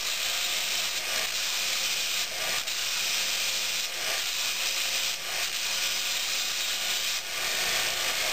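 MULTITOOL belt grinder attachment running a 100-grit 3M belt against a steel railway spike, a steady abrasive rasp with a few short dips as the spike is shifted on the belt. This is the second grinding stage, taking out the scratches left by the 40-grit belt.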